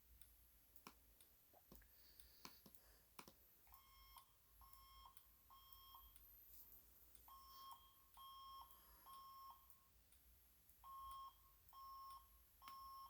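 Faint fire alarm tone in the temporal-three evacuation pattern: three short beeps, a pause, repeated three times.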